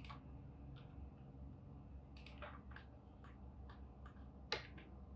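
Faint, scattered clicks of a computer mouse and keyboard keys, about a dozen, the sharpest a little past four and a half seconds in, over a low steady hum.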